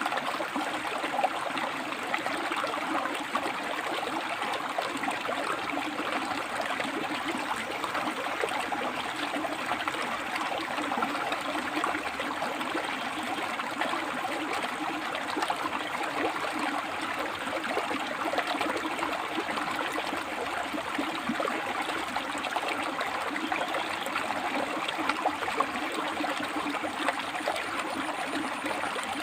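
River water flowing and splashing over and between rocks, a steady rushing with fine gurgles and trickles.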